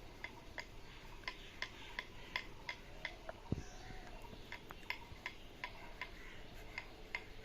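Light, even ticking, about three ticks a second, with one dull thump about three and a half seconds in.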